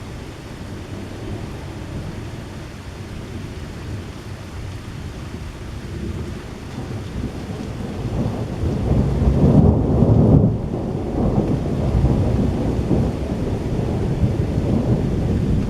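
Thunder rolling over steady rain, the rumble building about six seconds in, loudest about ten seconds in, then rolling on to the end.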